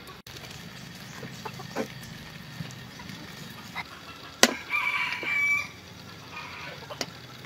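A rooster crows once, a call of about a second starting a little after a sharp click about four and a half seconds in. A few fainter clicks and a low steady hum run underneath.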